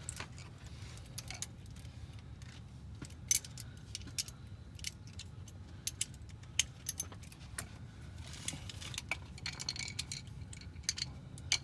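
Metal hand tools clinking and clicking irregularly, a 12 mm socket and wrench being handled and worked on the bolts that hold the starter's wiring connectors, over a steady low hum.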